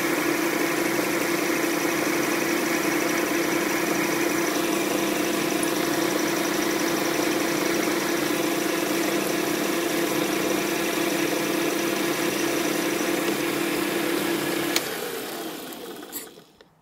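Small benchtop metal lathe running steadily with a strong motor hum while turning a long taper on a steel rod held between centres. About 15 seconds in there is a click, then the lathe winds down to a stop.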